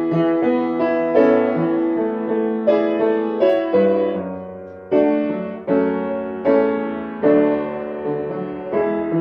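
Background piano music: a slow melody of struck notes and chords, each fading after it is played.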